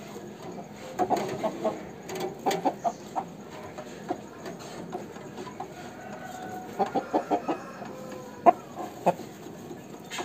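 Aseel rooster clucking: short runs of quick clucks about a second in, at two and a half seconds and near seven seconds, with a few single clucks between and after.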